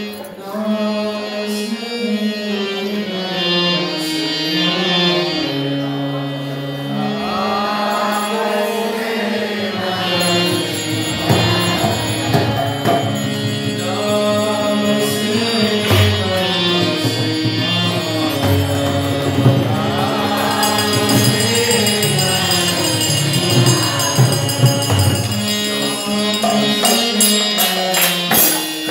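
Devotional kirtan: a harmonium plays a stepping melody, a voice starts singing the chant after several seconds, and a mridanga drum joins a few seconds later. Small hand cymbals (karatals) ring brightly in the latter part.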